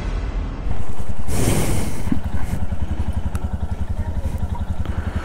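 Motorcycle engine idling with an even low thudding beat, with a brief louder rushing burst about a second in.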